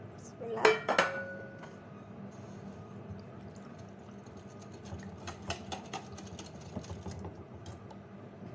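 A stainless steel bowl clanks and rings briefly about half a second in as water is poured from it into another steel bowl. Then a wire whisk stirs flour into the water, its wires ticking and scraping against the steel bowl, with the light taps coming thickest from about five seconds in.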